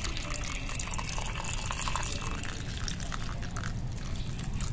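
A large pot of chicken macaroni soup at a rolling boil, bubbling and popping, as a thin stream of evaporated milk pours into it from the can. A low steady rumble runs underneath.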